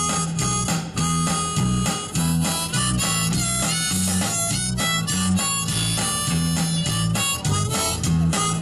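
Live blues band playing an instrumental break, with harmonica over electric guitar and a steady bass rhythm.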